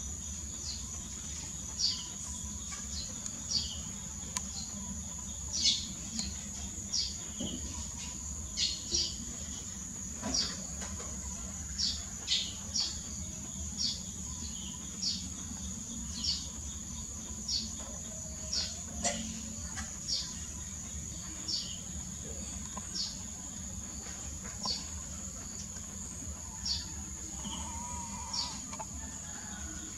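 Steady high-pitched insect drone, with short high chirps from a small bird repeating about once a second.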